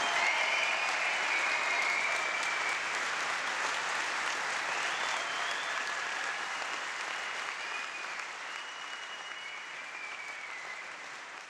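Audience applauding, the clapping fading out gradually.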